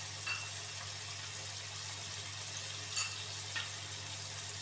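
Chicken keema in a watery tomato, onion and yogurt masala sizzling and bubbling in a wok: a steady hiss with a few sharp pops, the loudest about three seconds in.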